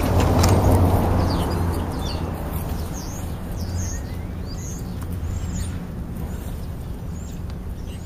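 A van passing on the road close by, its engine and tyre noise loudest at the start and fading over the next couple of seconds. Small birds chirp and whistle in short calls throughout.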